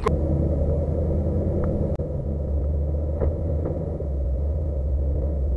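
Off-road 4x4's engine running, a steady low rumble, with a few faint clicks.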